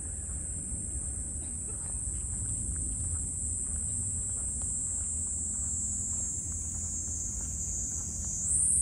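Steady high-pitched insect chorus that grows louder and slightly higher near the end, over a low rumble.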